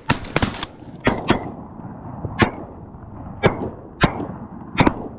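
Shotgun blasts from goose hunters firing at a flock of snow geese: an irregular volley of about eight sharp, loud shots in five seconds, some in quick pairs.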